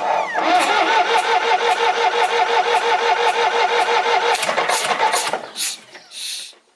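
Indirect-injection Perkins diesel engine of a Volvo 320 tractor being cranked on the starter motor: an even, fast chugging of compression strokes for about five seconds, then it stops. It is a first start after a service, with the number 1 injector line loosened to bleed air and no glow plug fitted, so the engine is slow to catch.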